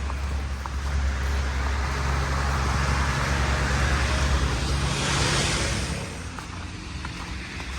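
A car driving past on a snowy street: its engine and tyre noise swell to a peak about five seconds in, then fall away, over a steady low rumble.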